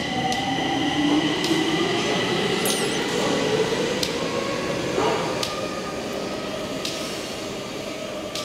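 Metro train accelerating on the station track, its electric traction motors whining steadily higher in pitch; about five seconds in the rising whine gives way to a steady higher hum.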